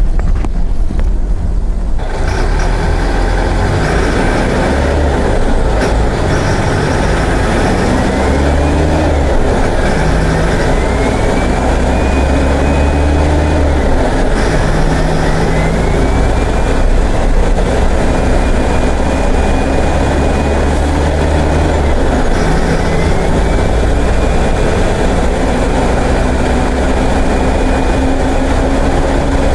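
Mercedes-Benz OF-1418 bus's six-cylinder diesel engine pulling hard, rising in pitch and then falling back at each gear change, several times over as it works through the six-speed gearbox.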